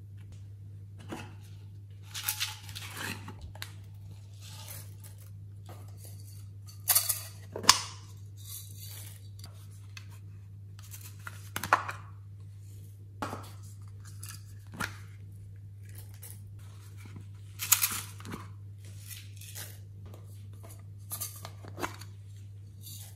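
Glitter and sequins shaken out of small plastic cases into a glass dish, and the cases handled: short rustling bursts and clicks every few seconds. A steady low hum runs underneath.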